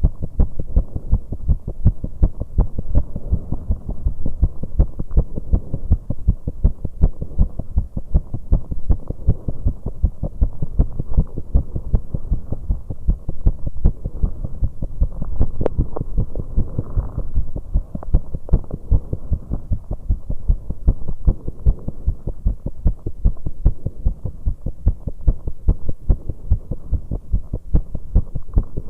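Human heart beating fast and hard, heard close up through the chest, its rate raised by exercise on an exercise bike. A steady run of low thumps, several a second, over a faint hum.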